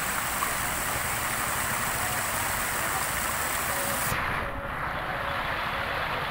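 Fountain jets in an ornamental pool splashing steadily, an even rush of falling water that turns duller about four seconds in.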